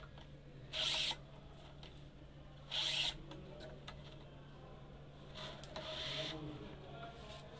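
Badminton string pulled quickly through the racket frame's grommets and across the strung bed: two short rasping zips about two seconds apart, then a longer, softer rub about two-thirds of the way through.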